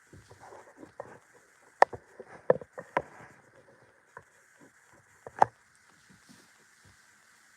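Irregular knocks and clicks, a few louder sharp ones about two, three and five and a half seconds in.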